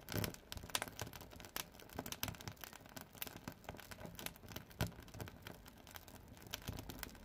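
Birch firewood crackling as it burns in a wood-fired sauna stove's firebox: a steady run of irregular sharp cracks, a few louder pops among them, over a faint hiss.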